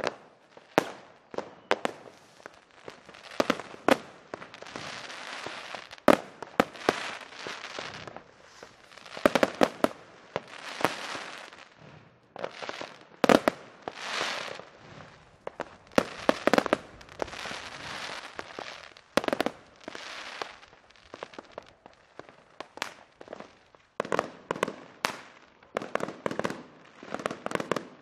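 Fireworks going off: a string of sharp bangs, many followed by a second or two of crackling, with a quick run of pops near the end.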